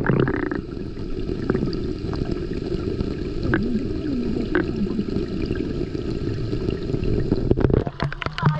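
Muffled underwater rumble heard through a GoPro held below the sea surface, with a few faint ticks, after a splash as it goes under. Near the end it breaks the surface with a splash, and the sharp patter of rain on the water returns.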